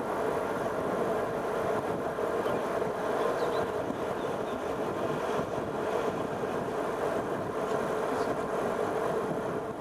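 A vehicle driving at steady speed: its engine running evenly under a constant hum of tyre and road noise, with no change in pace.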